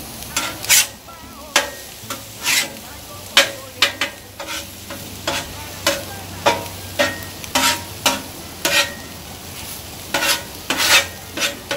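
Metal spatulas scraping and clacking on the steel top of a Blackstone 22-inch griddle in a quick, uneven series of about twenty sharp strokes, over the steady sizzle of scrambled eggs and chicken sausage links frying.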